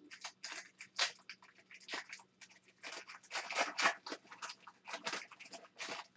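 Foil wrapper of a trading card pack crinkling and tearing as the pack is opened, an irregular run of quick crackles.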